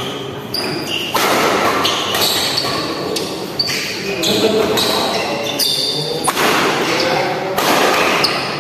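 Badminton doubles rally in a large hall: racket strikes on the shuttlecock and shoes squeaking on the court, several times, over a steady murmur of spectators' voices.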